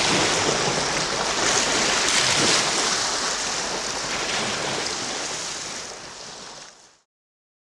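Small lake waves lapping and washing onto a pebble beach around boulders, in an even wash of water noise. The sound fades out near the end and stops.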